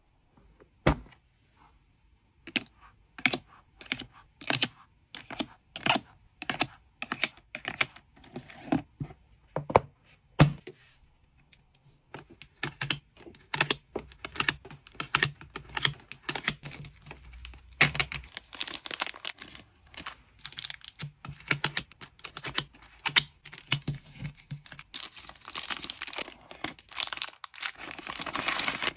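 Hands packing trading cards: a string of separate clicks and taps of plastic card holders being handled and set down, then denser crinkling and tearing of plastic packaging and tape in the second half.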